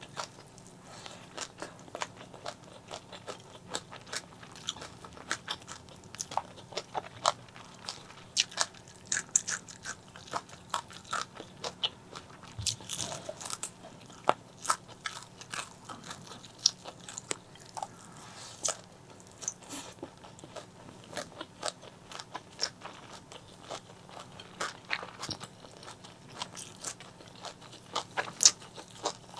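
Close-miked eating of fried fish: irregular crunchy bites and chewing, many sharp crunches following one another with no steady rhythm.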